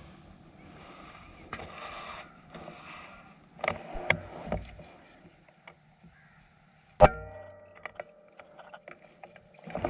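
A single shot from a PCP air rifle about seven seconds in: one sharp crack with a brief ring after it. Before it come a few soft clicks and thuds.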